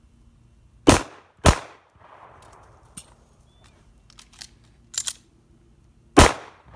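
Pistol shots: two about half a second apart about a second in, then a third near the end, each ringing out briefly. A few faint clicks fall in between.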